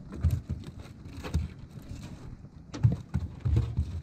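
Irregular dull thumps and knocks, four or five bunches, as a steelhead flops inside a rubber landing net set on a boat's metal deck.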